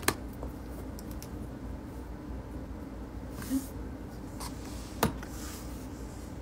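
Quiet room tone with a steady low hum, broken by a few sharp clicks, the loudest just after the start and about five seconds in, and a brief soft rustle.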